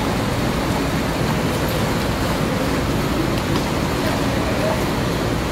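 Diesel coach engine running at low speed as the bus rolls slowly in toward the listener.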